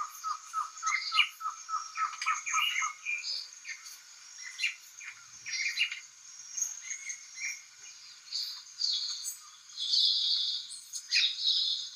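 Forest birds chirping and singing: a fast run of repeated notes, about five a second, in the first few seconds, then scattered chirps, with louder, higher calls near the end.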